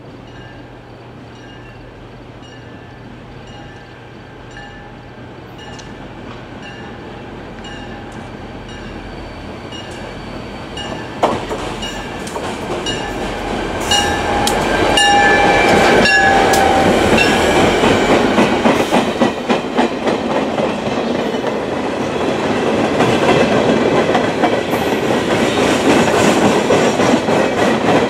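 A pair of NJ Transit EMD GP40PH-2 diesel locomotives draws near and passes, growing steadily louder to a peak about halfway through. A repeating ding sounds about twice a second as they come in. Behind them a train of loaded stone hopper cars rolls by with a dense clickety-clack of wheels over the rail joints.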